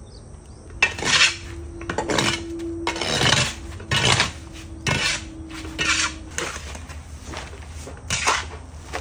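Metal shovel scraping and scooping cow dung off the shed floor into a pan-like basket, in about nine or ten rough strokes roughly a second apart.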